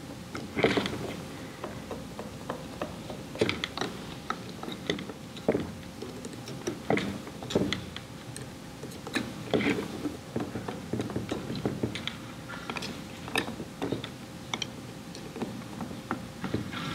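Hand driver tightening the manifold screws on the aluminium head of a KNF diaphragm pump, giving irregular small metallic clicks and knocks as the tool seats and turns in the screws.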